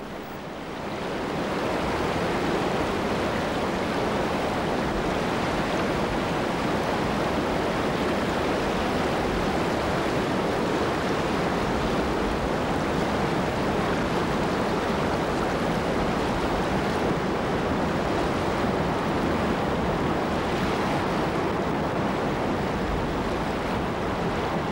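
River rapids rushing, a dense, steady white-water noise that swells in over the first second or two.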